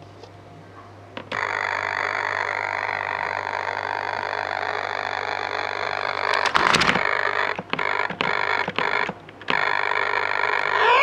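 Simple electronic tone generator sounding a steady, buzzy tone, switching on about a second in. Past the middle it crackles briefly, then cuts in and out several times before holding again, and it starts to slide in pitch at the very end. A low steady hum runs underneath.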